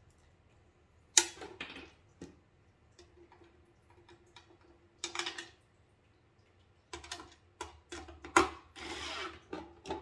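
Cordless drill driving small screws into a metal mounting bracket in short bursts of whirring, with sharp knocks and clicks in between; the loudest knocks come about a second in and about eight seconds in.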